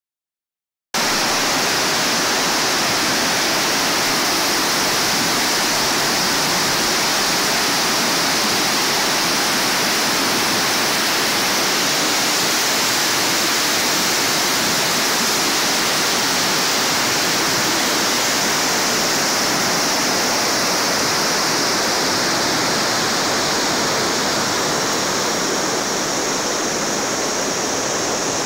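Water pouring over a sloping concrete weir and running into a rocky stream: a loud, steady rush that starts about a second in and eases slightly near the end.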